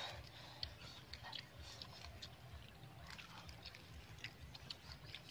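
Faint wet clicks and smacks of people eating cooked fish by hand: chewing and picking flesh off the bones, over a low rumble.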